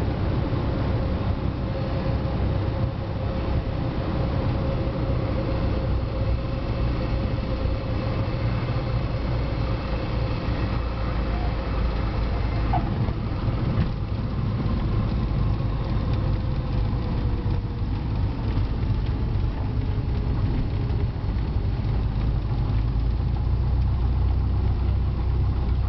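Cessna light aircraft's single piston engine and propeller at low landing power, heard inside the cabin with wind noise, a steady drone. Just past halfway one tone in the engine note sinks slowly as the power comes back.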